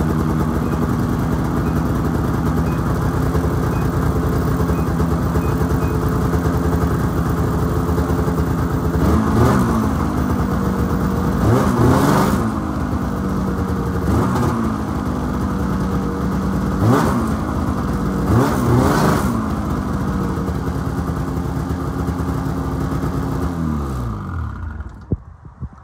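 2013 Ski-Doo MXZ 600 snowmobile engine idling steadily, then revved with five short throttle blips, each rising and falling in pitch. Near the end it winds down and shuts off.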